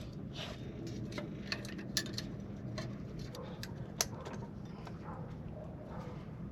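Scattered light clicks and taps of tools and metal parts being handled as a sailboat's anchor windlass is reassembled, the sharpest about four seconds in, over a faint steady low hum.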